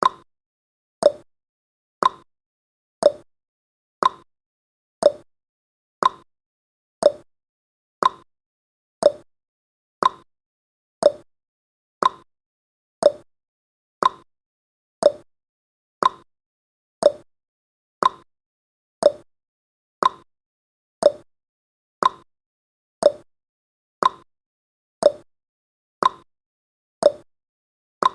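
Countdown timer's ticking sound effect: a clock-like tick once a second, alternating higher and lower in pitch like a tick-tock, each tick short and quickly fading.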